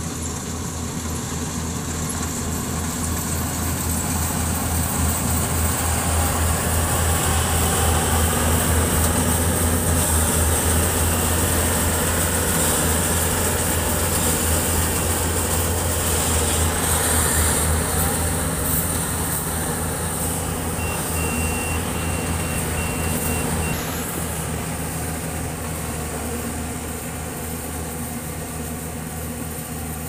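Yanmar AW70V combine harvester running steadily while harvesting rice, its diesel engine hum loudest in the middle. About two-thirds of the way in, a short run of high, evenly spaced electronic beeps sounds over it.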